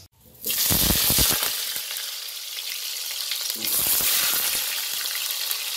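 Potatoes dropped into hot oil in a kadai: the oil breaks into a loud sizzle about half a second in and keeps frying steadily. The sizzle swells again a little after three and a half seconds.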